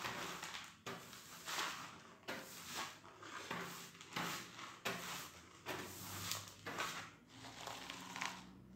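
A stiff-bristled hand brush sweeping grit and dust across a hard worktop into a plastic dustpan, in about a dozen short brisk strokes.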